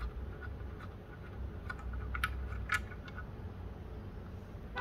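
Screwdriver working the belt-guard screw out of a Juki industrial sewing machine: a handful of small metallic clicks and scrapes about two to three seconds in, over a low steady hum.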